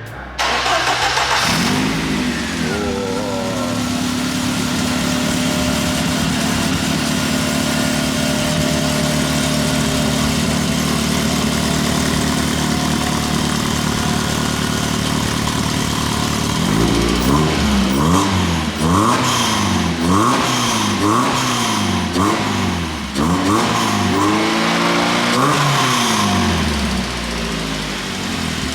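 A classic car's engine catches and revs up, then settles into a steady idle. About halfway through, the throttle is blipped over and over, roughly once a second, with the revs rising and falling each time.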